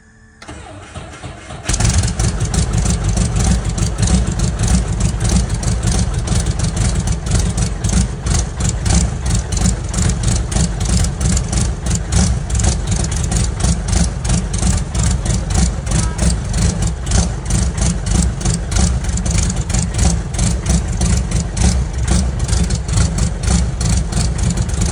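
A Brantly B2 helicopter's four-cylinder Lycoming piston engine is cranked, catches a little over a second in, and then runs steadily with a rapid pulsing beat. It is the first start after years of standing, on freshly cleaned fuel lines and new filters.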